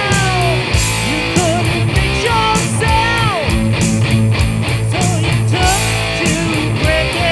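Rock band instrumental: a lead guitar plays sliding, bent notes over bass and a steady drum beat.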